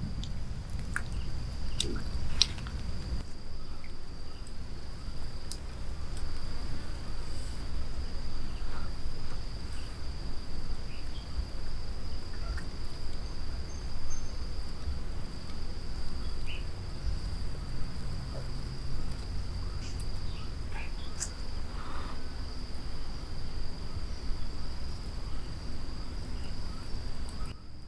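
Insects chirring in a steady high-pitched drone, with a low rumble underneath and a few light clicks as grilled mussel shells are handled.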